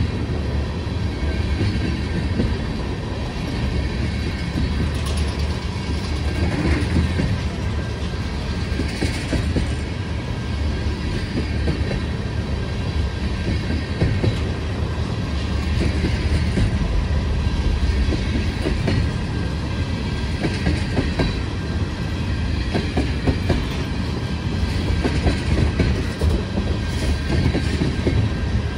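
A freight train of tank cars rolling past close by: a steady rumble of steel wheels on rail, with a clickety-clack of wheels over the rail joints.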